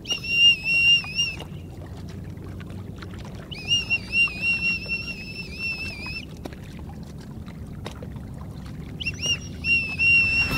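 A safety whistle blown in three long, warbling blasts as a call for help, the middle one the longest.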